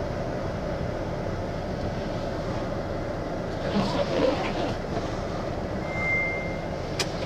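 MAN TGX lorry's diesel engine running steadily, heard from inside the cab as the truck is lined up to reverse. A short single beep sounds about six seconds in, and a sharp click comes near the end.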